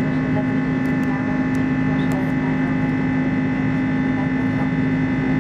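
Steady drone of an Airbus A330-200's Pratt & Whitney PW4168A engines, heard inside the cabin, with a constant low hum and a fainter high whine.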